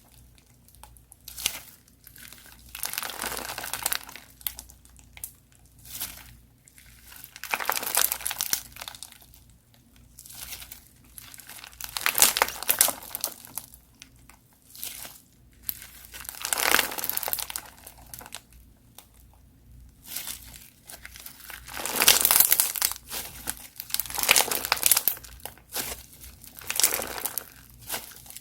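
Crunchy slime being worked by hand, crackling and popping in irregular bursts every second or two.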